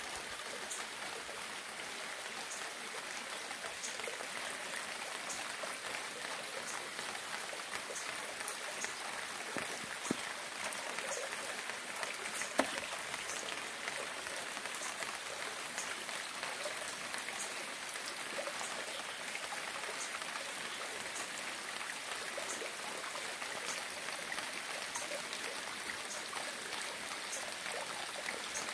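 Steady rainfall, a constant hiss with many small drops ticking, and two sharper single drop hits about ten and twelve seconds in.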